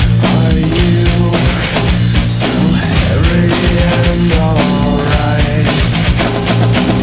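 Nu metal instrumental passage: heavy distorted guitars and a driving drum kit.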